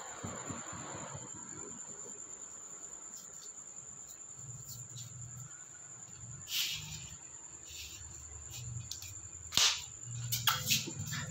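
A steady high-pitched, insect-like whine runs throughout. Over it come a few sharp knocks and scrapes as a puppy plays with a cable and ball on a stone floor: one about two-thirds in, a louder one near the end, then a short cluster.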